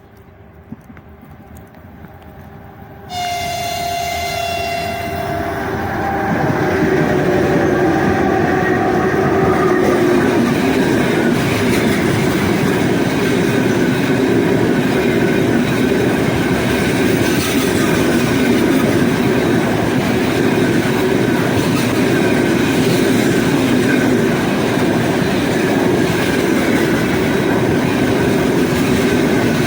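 3ES5K 'Ermak' electric locomotive approaching with a faint hum, then sounding its horn about three seconds in, a chord that drops in pitch as it passes. Then its heavy freight train rolls by with a loud steady rumble and wheels clattering over the rail joints.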